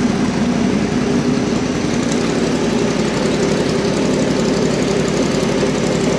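Norton V4 superbike's V4 engine running steadily at low speed, just after its first start and rolling-road test, as the bike is ridden off the bench. No revving.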